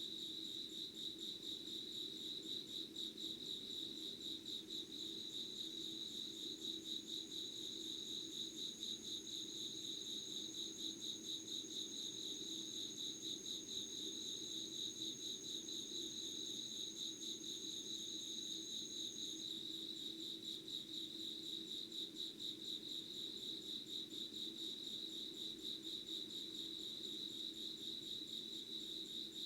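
A chorus of insects calling steadily in a continuous, fast-pulsing high trill. A second, thinner and higher steady tone joins about five seconds in and stops about two-thirds of the way through. A faint low hum lies underneath.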